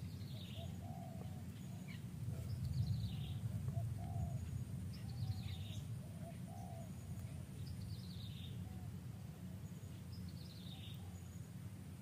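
A bird repeating a short falling call about every two and a half seconds, five times, over a steady low rumble of background noise.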